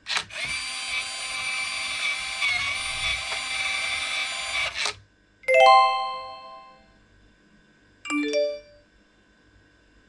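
Nuki Smart Lock 3.0 Pro's motor whirring steadily for about five seconds as it turns the door cylinder to unlock, then stopping abruptly. About half a second later an electronic chime rings out and fades, and a short falling run of electronic notes follows a few seconds after.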